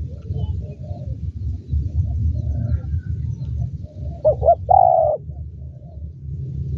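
Spotted dove cooing once, about four seconds in: two short notes and then a longer held note. A steady low rumble runs underneath.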